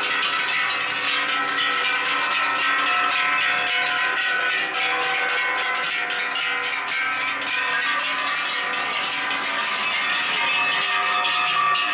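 Many large cowbells hung on heifers, clanging and ringing together as the herd walks: a continuous jangle of overlapping bell tones.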